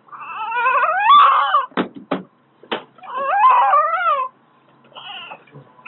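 Newborn baby crying: two long, wavering cries, with a few short sharp sounds between them.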